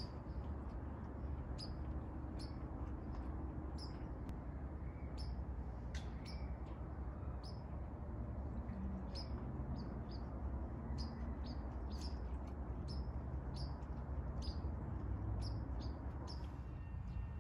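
A small bird chirping over and over, short high chirps at roughly one to two a second, over a steady low background rumble.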